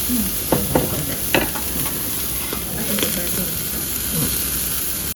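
Food sizzling steadily as it cooks on a hot surface, with a few sharp clicks of utensils, about a second and a half in and again near three seconds.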